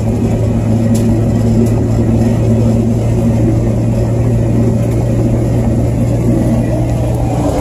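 A car driving along a road, heard from inside the cabin: a steady engine drone and road rumble.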